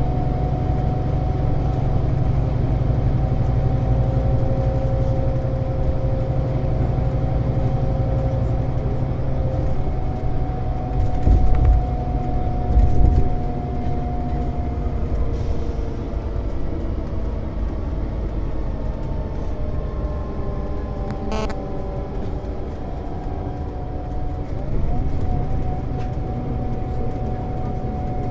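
Scania Citywide Interurban bus heard from inside while driving: a steady low engine and drivetrain rumble with a whine whose pitch changes partway through. Two heavy low thumps come about 11 and 13 seconds in, and a sharp click follows later.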